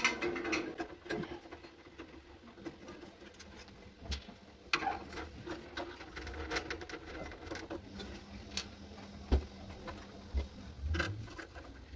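Screwdriver working screws out of the sheet-metal burner housing of a Cointra butane water heater while its pilot assembly is dismantled. Scattered small clicks, taps and scrapes of metal on metal, with a few sharper clicks about five and nine seconds in.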